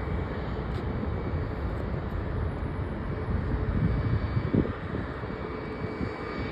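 Steady jet airliner engine noise, a broad rumble with a faint whine, swelling slightly about four seconds in.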